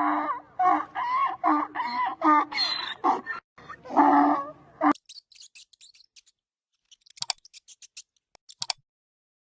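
Chickens clucking in a run of short, loud calls for about five seconds, then much quieter high, thin chirps.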